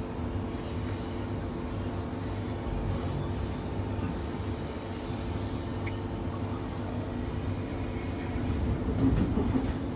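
Queensland Rail New Generation Rollingstock electric train running between stations, heard from inside the carriage: a steady rumble of wheels on the track with a constant hum from the traction equipment. There is a brief high squeal about six seconds in, and the rumble grows louder near the end.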